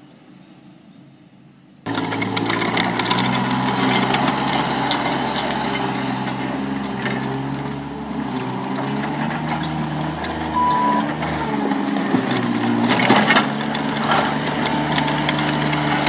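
New Holland L150 skid-steer loader's diesel engine running hard, coming in suddenly about two seconds in after a faint start. A few sharp metallic clanks sound near the end.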